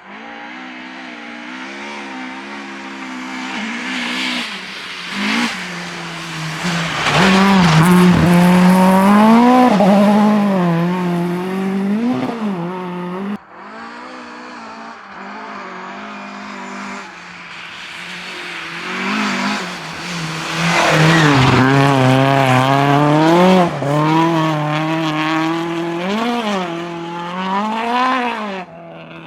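Rally cars passing at speed, one after the other. Each engine revs hard, its pitch climbing and dropping through gear changes and throttle lifts, and is loudest as the car goes by. The first pass cuts off suddenly about halfway through, and a second car follows.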